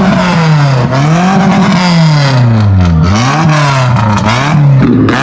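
Car engine being revved over and over, its pitch sweeping up and down about once a second, the blips getting shorter and quicker near the end.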